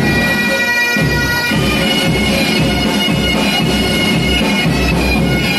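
Pipe band playing a tune: bagpipes with their steady drone and chanter melody, over a regular bass drum beat.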